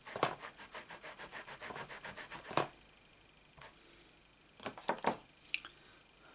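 Rubber stamp being scrubbed clean on a stamp-cleaning pad: quick back-and-forth rubbing strokes, about eight a second for some two and a half seconds, ending in a sharper knock. A few light clicks and taps follow near the end.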